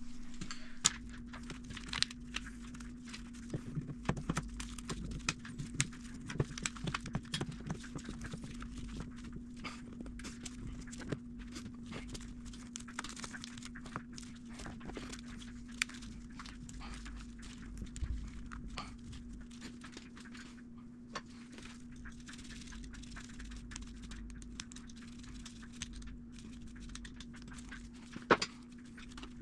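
Hands working on a motorcycle engine's wiring and intake parts: scattered clicks, taps and light knocks, busiest in the first half, with a sharper click near the end, over a steady low hum.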